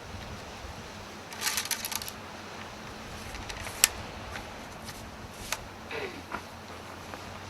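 A quick flurry of light metallic clinks, then a single sharp click and a few scattered taps and a short scrape: loading gear being handled against an American flintlock long rifle while it is loaded.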